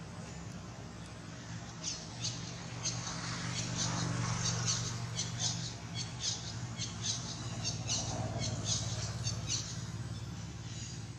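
Long-tailed macaques making short, high squeaks, repeated irregularly at about two or three a second from about two seconds in until near the end, over a steady low hum.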